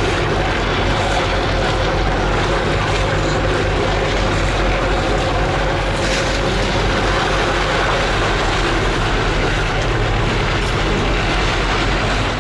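Engine of a whale-watching boat running steadily, a low hum under a constant rushing noise.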